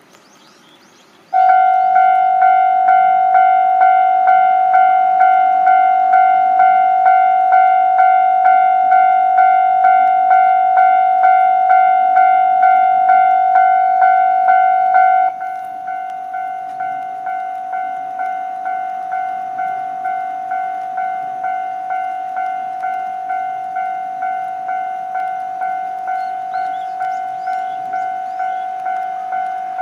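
Japanese level-crossing warning bell ringing, a steady electronic ding repeating about twice a second, as a crossing closes for an approaching train. It starts about a second and a half in and drops to a lower volume about halfway through.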